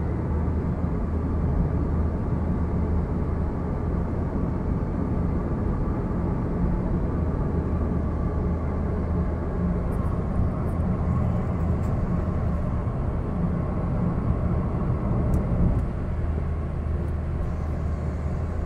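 A car driving at steady speed, heard from inside the cabin: a steady low engine hum with road and tyre noise.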